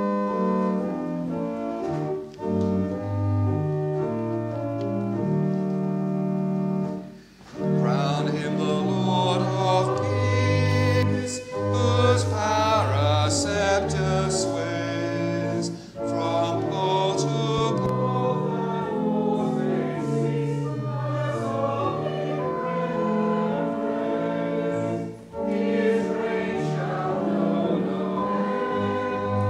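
Church organ playing a hymn, with the congregation singing the verses over it from about eight seconds in; there are short pauses between phrases.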